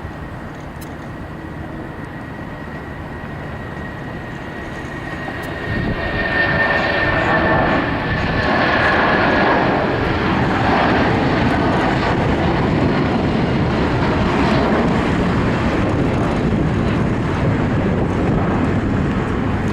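Boeing 757-300 jet engines at takeoff power: a steady roar that swells about six seconds in and stays loud, with a high whine that rises out of it and fades a few seconds later.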